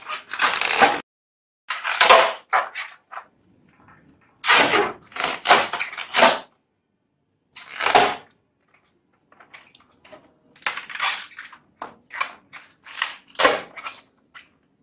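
Rubber balloon rubbed and squeezed in small hands, giving a series of irregular, scratchy rubbing bursts, some loud, with short gaps between them.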